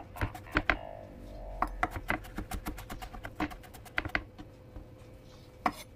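A kitchen knife chopping on a cutting board: sharp, irregular clicks a few times a second, over faint background music.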